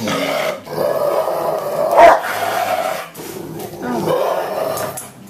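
Dog crying, a long drawn-out whining cry, loudest about two seconds in, then a short break and a second stretch of crying.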